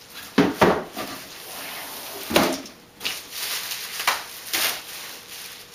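Handling noises: a few sharp knocks and rustling scrapes as a hard plastic outdoor speaker and its packaging are moved about.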